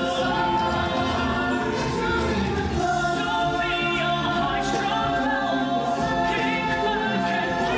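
Music with a group of voices singing together, choir-like, at a steady level.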